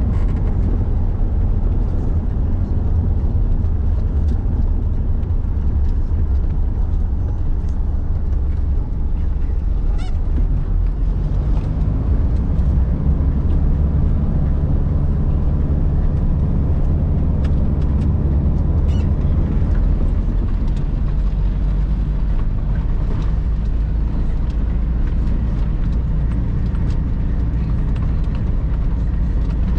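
Car driving on a gravel road, heard from inside the cabin: a steady low rumble of engine and tyres on loose gravel, with a few faint clicks scattered through it.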